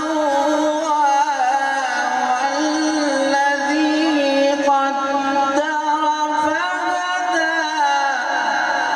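A man's voice reciting the Quran in melodic tajweed style, long held notes bending and turning in pitch.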